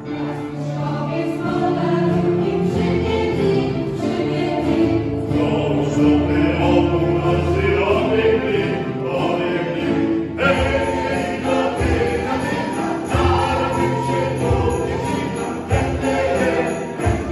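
Mixed choir singing a Polish Christmas carol, accompanied by violins, trombone and keyboard, with jingle bells shaken in a steady rhythm, most clearly in the second half.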